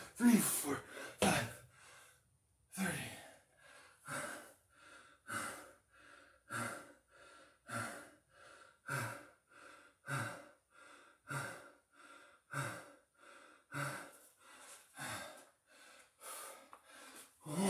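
A man breathing hard and rhythmically from the exertion of continuous burpees, a loud puffing exhale about every 1.2 seconds.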